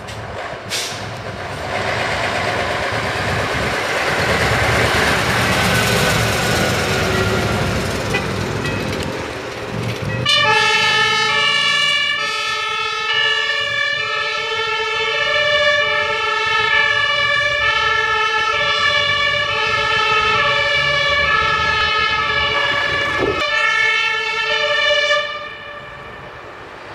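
Mercedes-Benz TLF 24/50 fire engine driving past, its engine and tyres loud. About ten seconds in, its two-tone siren starts suddenly, alternating between a high and a low note, and it cuts off a couple of seconds before the end.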